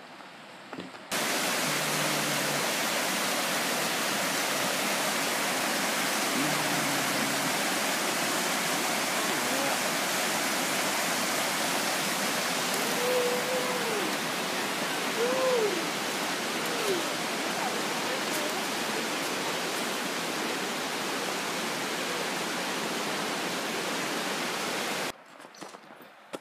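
Creek water rushing over rocks, a loud steady rush that starts abruptly about a second in and cuts off abruptly about a second before the end. A few faint rising-and-falling tones come through it around the middle.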